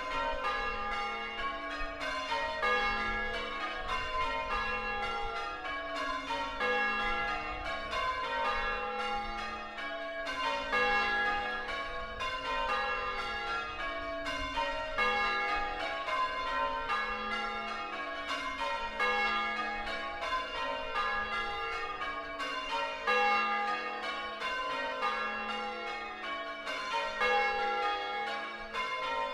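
A ring of six church bells in A-flat, tenor 8-1-26 cwt, rung full circle in steady rows of strikes, each row stepping down in pitch from treble to tenor.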